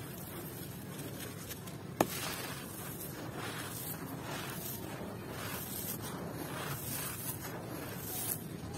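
Hands crushing dried sand-and-cement discs and letting the crumbled sand and grit pour through the fingers: gritty crunching and a run of sandy swishes, with one sharp crack about two seconds in.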